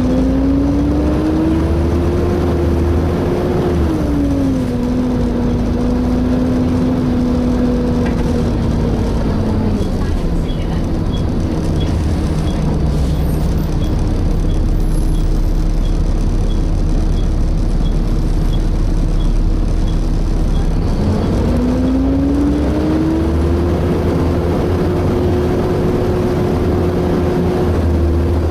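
Volvo B7TL bus heard from inside, its engine and hydraulic cooling fan giving a loud hoover-like whine whose pitch rises, steps down, falls away and climbs again as the bus pulls away, changes gear and slows. Faint regular ticking in the middle stretch.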